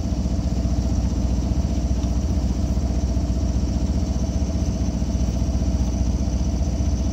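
A sailboat's motor running at a steady low speed, a constant low drone with no change in pace.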